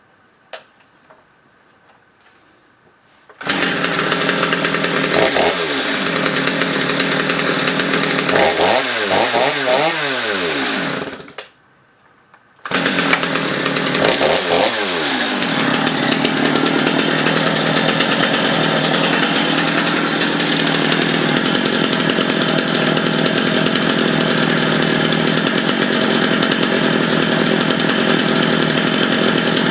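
Stihl MS 250 two-stroke chainsaw engine starting suddenly a few seconds in and being revved up and down a few times. It cuts out for about a second and a half, then starts again, revs once more and settles into steady running.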